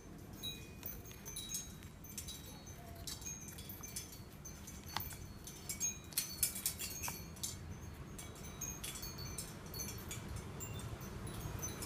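A pen drawing on paper: faint scattered taps and scratches with short, high squeaks as strokes are made, busiest about halfway through.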